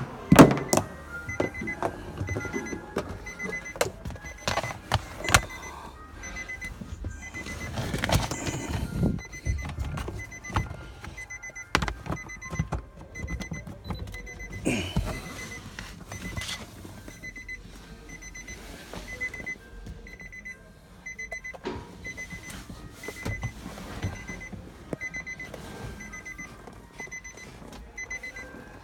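Car's warning chime beeping steadily, about two beeps a second, with scattered knocks and rustling from handling inside the car.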